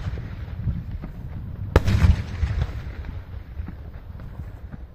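Daytime fireworks shells bursting: one sharp bang about two seconds in, trailing off into a rumbling echo, over a steady low rumble of other bursts.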